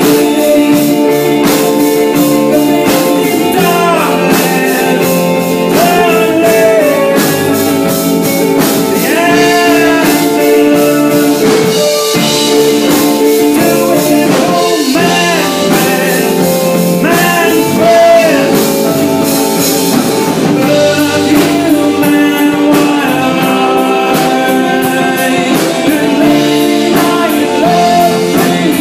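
Alt rock/folk band playing live: a male lead voice singing over electric guitar, bass guitar and a drum kit keeping a steady beat.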